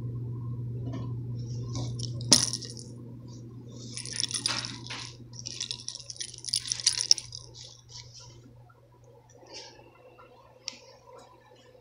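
Kitten scratching and digging in a litter box of coarse clay litter, the granules rattling and scraping in two bursts about four and six seconds in, after a sharp click about two seconds in. A low steady hum runs underneath.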